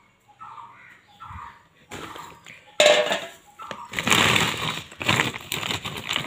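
Plastic sacks and bags rustling and crackling loudly as they are rummaged through and handled, starting about three seconds in.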